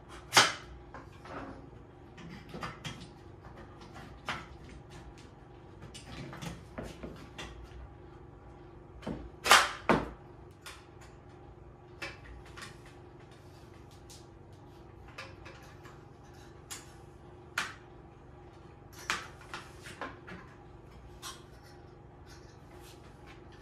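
Scattered clicks and knocks of metal frame parts and a hand tool being handled while a laser engraver's frame is assembled and its shaft tightened. The loudest knocks come as a pair about ten seconds in, over a faint steady hum.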